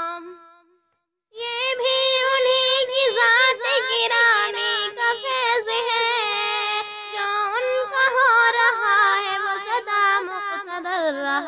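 A high voice singing a naat, an Urdu devotional song in praise of the Prophet, in long, wavering melismatic lines. The singing stops for about a second near the start, then carries on without a break.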